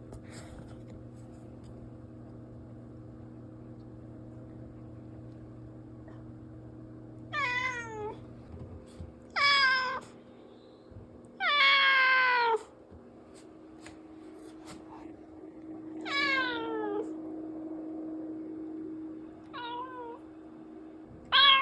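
A cat meowing six times, each call falling in pitch, the longest and loudest one near the middle; the calls begin about seven seconds in, after a stretch with only a low steady hum.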